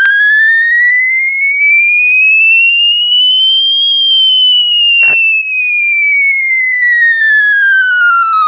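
A speaker-cleaning app's tone played through a smartphone's loudspeaker, meant to shake dust out of the speaker. It is one buzzy tone that rises slowly in pitch for about four seconds, then falls again. A short click comes about five seconds in.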